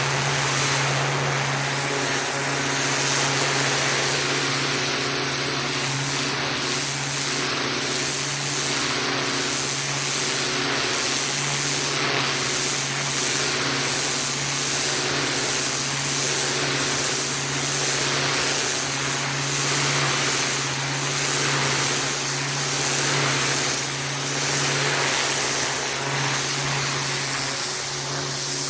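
Pressure washer running: a steady motor hum under the hiss of the high-pressure water jet, the spray swelling and fading about every one and a half seconds.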